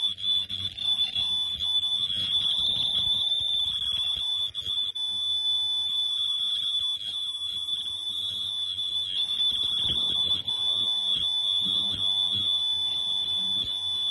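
Mask machine's alarm buzzer sounding one steady high-pitched tone without a break, over a low hum and handling noise from the machine.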